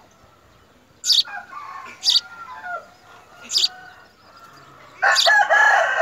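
House sparrow chirping at the nest: three short, sharp chirps about one, two and three and a half seconds in, with softer calls between them. About five seconds in, a louder, drawn-out bird call of about a second and a half starts and is the loudest sound.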